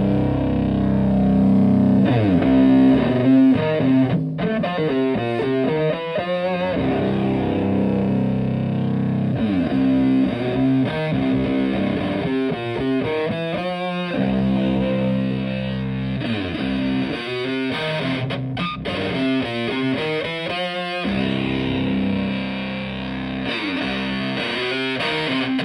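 Stratocaster electric guitar played through a two-knob Park Fuzz Sound fuzz pedal into a Fender Twin Reverb clone amp, giving a thick fuzzy distorted tone. Held chords alternate with quick runs of notes, several times over.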